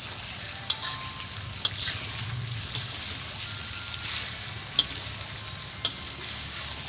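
Pieces of beef sizzling as they are sautéed in hot oil with spices in a pan, a steady frying hiss. A few sharp clicks of the stirring utensil against the pan come through it.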